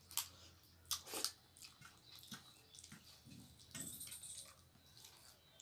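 Eating by hand: a few sharp lip smacks with soft chewing and the squish of rice and curry being mixed with the fingers.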